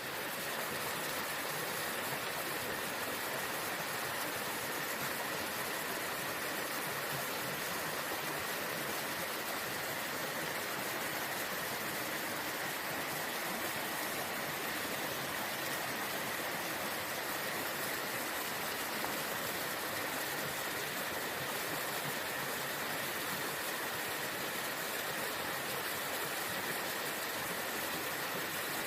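Waterfall running, a steady, unbroken rush of falling water, with a faint steady high tone beneath it.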